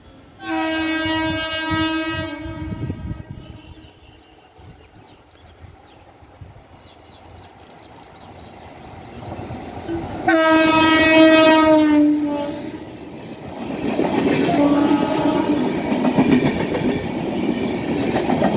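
Express train's locomotive horn sounding a long blast, then a second, louder blast about ten seconds later as the locomotive draws near, its pitch sagging slightly at the end as it passes. Then the loud rush and clickety-clack of the coaches going by at speed.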